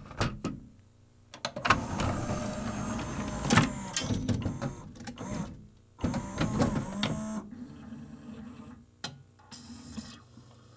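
Pioneer CLD-M301 LaserDisc player loading a CAV disc: a few clicks as the disc is set on the tray, then the tray mechanism running with a loud clunk about three and a half seconds in. Another burst of mechanism noise follows about six seconds in, then a quieter steady whir as the disc spins up to play.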